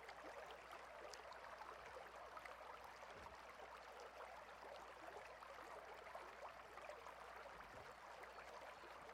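Faint, steady rush of a mountain stream's flowing water, with tiny scattered ticks.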